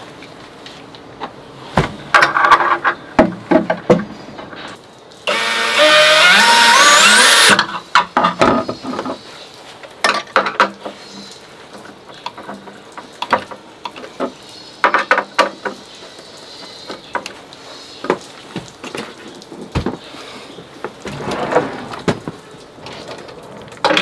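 Cordless drill-driver running for about two seconds, its whine rising in pitch as it drives a screw into the cabinet. Scattered clicks and knocks of tools and parts being handled come before and after it.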